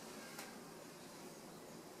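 Faint steady room hiss, with a single light click about half a second in.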